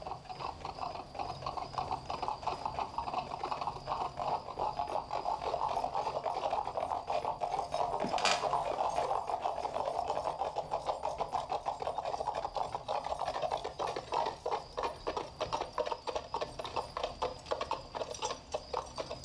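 Hooves of several horses clopping at a walk in a dense, uneven patter that grows louder over the first few seconds. A single sharper clink sounds about eight seconds in.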